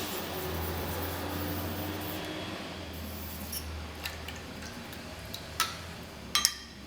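A Takashima awasedo natural sharpening stone being scrubbed on its surface to recondition it, a steady gritty rubbing that stops about three and a half seconds in. Several short sharp clicks and knocks follow.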